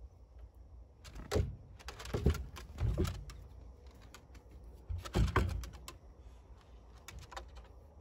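Short knocks and rattles from a wooden rabbit hutch with wire-mesh panels, about four separate bursts of clatter a second or so apart, then a longer gap before one more. A low steady rumble runs underneath.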